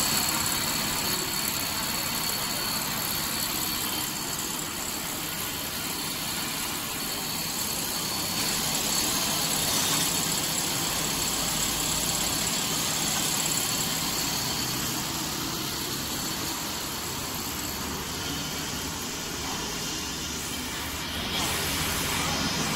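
Steady machinery noise from a running corn-puff snack extrusion production line, with a faint steady high whine over it. It gets a little louder near the end.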